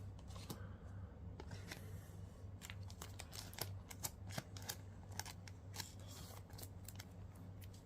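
Quiet handling of trading cards, with soft rustling and scattered light ticks as the cards slide and are flipped against each other.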